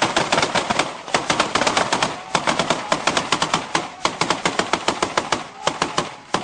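Heavy automatic-weapons fire: rapid, overlapping shots, many a second, easing briefly near the end.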